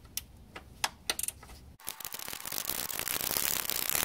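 Ratcheting 10 mm wrench clicking in short strokes as it works a rusted nut on the parking brake cable bracket. About two seconds in, a louder, dense scraping and crackling noise takes over.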